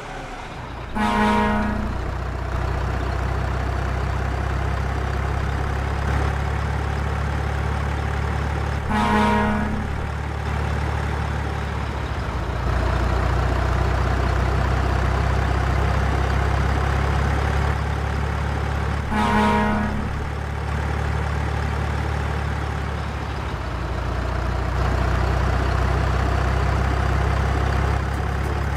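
Truck engine running steadily with a deep low hum, and a truck horn honking three times, one toot of about a second roughly every nine to ten seconds.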